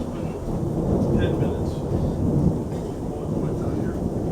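Rolling thunder from a thunderstorm, a continuous low rumble that swells and ebbs.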